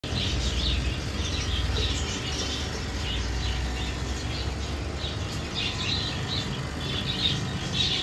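Many small birds chirping continuously, a dense chatter of short high calls, over a low rumble that is stronger in the first few seconds.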